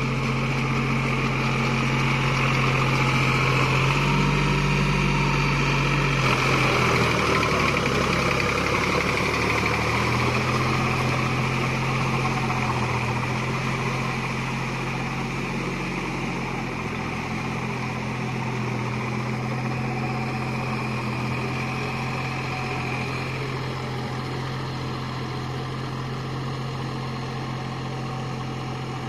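Deutz-Fahr Agrolux 50 4WD tractor's diesel engine running under load as it pulls a rotary tiller through flooded paddy mud. Its note shifts several seconds in, then holds steady, growing slightly fainter as the tractor moves away.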